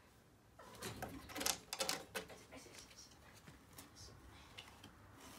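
A kitten's claws and paws scrabbling and knocking on a wooden railing as she climbs: a quick run of clicks and taps, loudest about a second and a half in, then a few light ticks.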